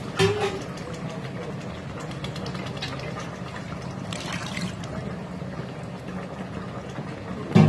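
Chicken stock poured from a pot into a pan of tomato stew, a steady splashing pour, with a short knock about a quarter second in.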